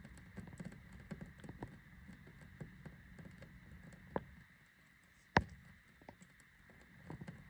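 Faint taps and scrapes of soldering work on a twisted wire splice, with one sharp click about five seconds in, over a faint steady hum.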